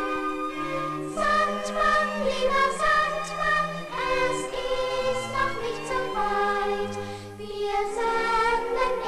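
A choir singing a gentle song with instrumental backing, the voices coming in fuller about a second in.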